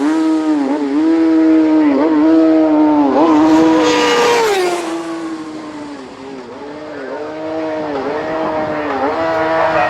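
Racing motorcycle engines running hard on a closed public-road circuit, the high engine note dipping briefly at each gear change. The sound fades around the middle and builds again toward the end.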